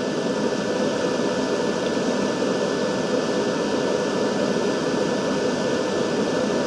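Steady whirring hum of an electric fan, with a faint high steady tone over it.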